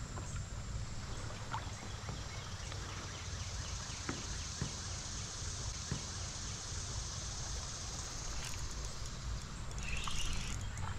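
Steady low outdoor rumble with a few faint scattered clicks and taps, and a faint high hiss through the middle.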